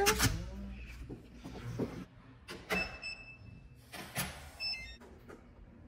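Door and cabinet handling: a shoe cabinet door opened and shoes taken out, giving a string of sharp knocks and clatters, one near the middle followed by a brief ringing tone. Near the end there is a quick run of short high tones, then one last knock.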